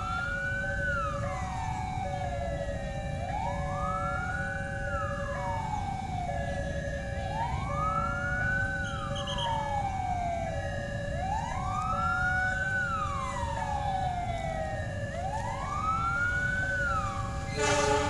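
A siren wailing, rising and falling slowly about once every four seconds, over a low rumble and steady stepped electronic tones. Right at the end the CC206 diesel locomotive's horn starts to blow as the train approaches.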